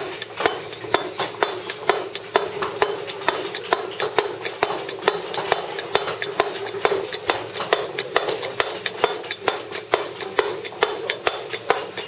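Claw chisel driven by a round-headed mallet into Bath stone: steady, rapid taps about four a second, taking off a thin layer to work a moulding down.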